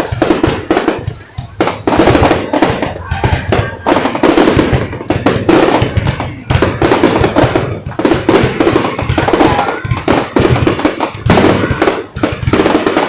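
Aerial fireworks going off in rapid succession, overlapping bangs and crackles with hardly a pause, along with music.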